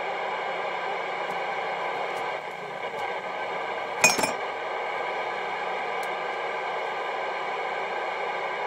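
Kenwood TM-V71 mobile radio's speaker hissing steadily with the squelch open on the SO-50 satellite downlink, no station coming through. A single sharp clink about four seconds in.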